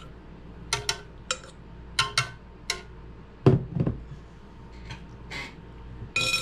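Metal fork clinking and tapping against a glass mixing bowl and a bread machine pan as mashed banana is scraped off: a run of short, sharp clinks, then a heavier thud about halfway through as the glass bowl is set down on the table, and a ringing clink of fork on glass near the end.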